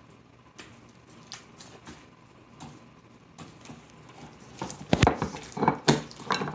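Rubbery homemade slime being squeezed and pulled apart by hand, so stiff that it breaks rather than stretches. Scattered small sticky clicks are followed by a cluster of louder squishes and snaps about five seconds in.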